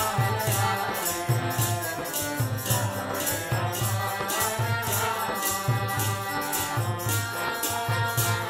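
Kirtan music: a harmonium holding chords under a steady rhythm of shaker-like percussion, about three strokes a second, with a low drum beat.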